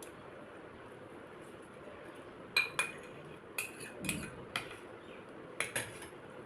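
Cutlery clinking against a dish about eight times, several in quick pairs, as a meal of paratha and curry is eaten.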